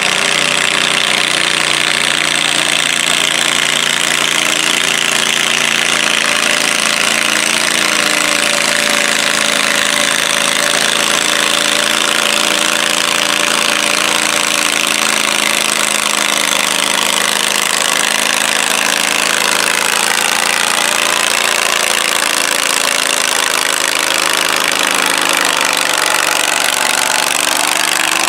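Tractor engines running steadily: a John Deere 317 garden tractor and the farm tractor moving the weight-transfer pulling sled behind it.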